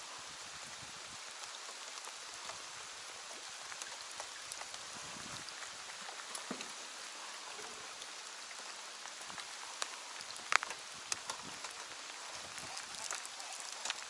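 Steady light rain pattering on the lake surface, with scattered sharp ticks and one louder click about ten and a half seconds in.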